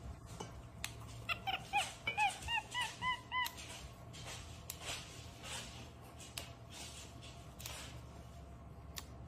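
A monkey giving a quick run of about ten short squeaky chirps, each rising then falling, over about two seconds, with scattered sharp snaps and clicks before and after.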